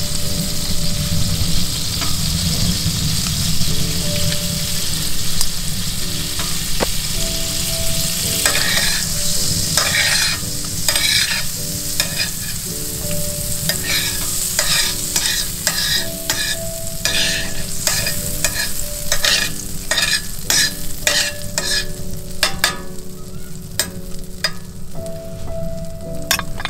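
Butter sizzling on a hot iron griddle plate on a wood-burning stove. About a third of the way in, the steady sizzle turns to many sharp pops and spits as the melted butter spreads and foams.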